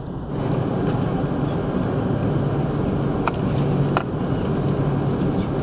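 Cabin noise of an Airbus A330-300 taxiing: its jet engines running with a steady low hum under an even rush of noise, with two faint clicks about three and four seconds in.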